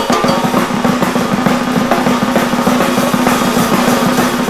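Outro music driven by fast, busy drumming on snare and bass drum.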